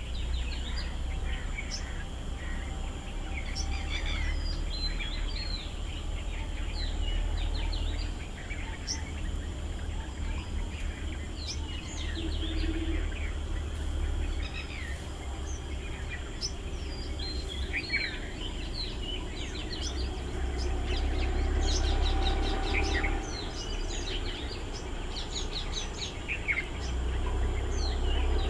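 Many small birds chirping and calling in short, quick notes, scattered throughout, over a thin steady high-pitched tone and a low rumble that comes and goes.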